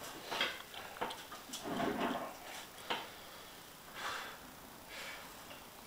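Effortful breathing and strained breaths from a lifter grinding through a heavy 255 lb barbell bench press, in several short hissy bursts, the strongest about two seconds in. A sharp click from the bar or rack comes about three seconds in.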